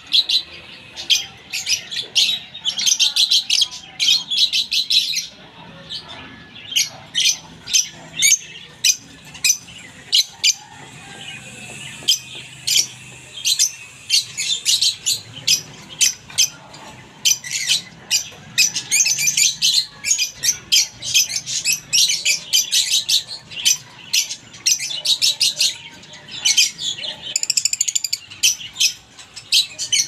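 Caged lovebirds chirping: rapid, shrill chirps in runs of several seconds, with a few brief lulls.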